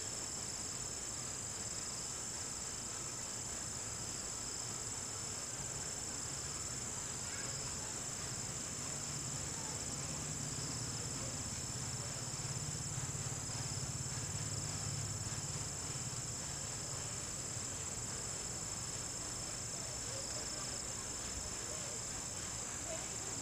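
Steady, high-pitched chorus of night insects, unbroken throughout, with a faint low hum swelling for several seconds in the middle.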